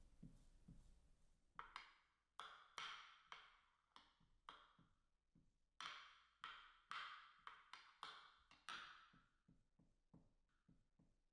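Metal spoon pressing and smoothing a sticky date-and-nut mixture into a glass baking dish: a quiet series of short scraping taps, about one or two a second.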